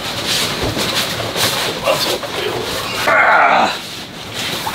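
Rustling, scraping and handling noise of a fabric upholstery cover being tugged over a foam cushion, with a louder rush of sliding fabric about three seconds in.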